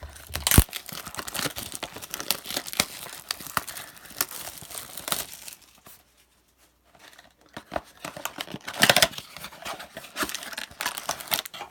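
Packaging of a trading-card blaster box being torn open and crinkled: dense crackling and tearing, with a short pause about halfway through and a loud rip near the end.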